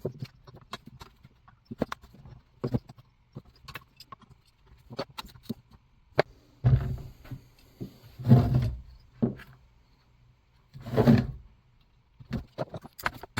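Small metal clicks and knocks of tools and parts being handled while the ignition coil is refitted to a chainsaw, broken by three short, louder bursts of rough noise, two close together about halfway through and one more near the end.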